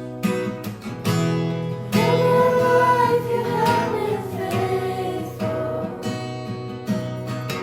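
A worship song: acoustic guitar strummed in steady chords, with a voice singing long held notes in the middle.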